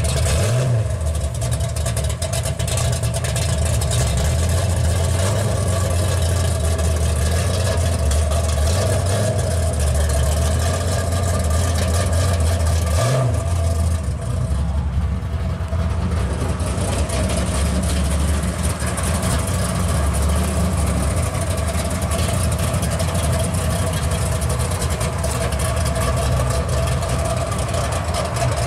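Second-generation Chevrolet Camaro's engine idling with a steady low exhaust rumble as the car creeps away, with a brief blip of the throttle about a second in and another about halfway through.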